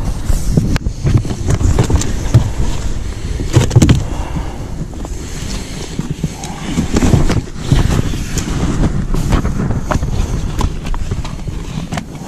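Wind rumbling on the microphone, with irregular knocks and thumps from a pike being handled on the boat's deck.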